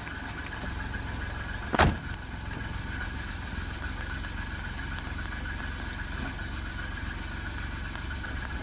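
Car engine idling steadily, with one loud sharp knock about two seconds in.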